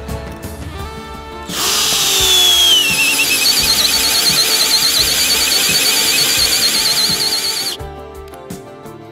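An 18 V FAVOURITE DC 1802 PROMO cordless drill-driver boring into wood with a 25 mm Bosch Self Cut spade bit, in low gear, the only speed at which it could drive this bit confidently. It starts about a second and a half in, its whine dropping in pitch as the bit bites and then holding with a slight waver, and stops suddenly near the end.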